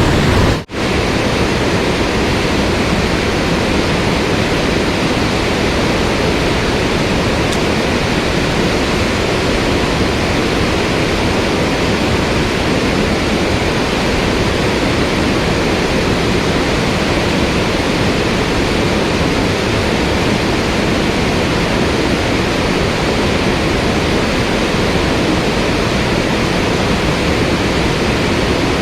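Steady rush of water in a mountain stream, an even noise with a momentary dropout just under a second in.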